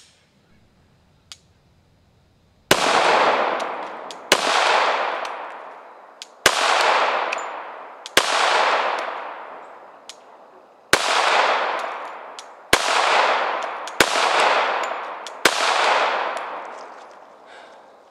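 Glock 21 Gen4 .45 ACP pistol fired eight times in slow, uneven succession, a second or two apart, each shot followed by a long echo dying away.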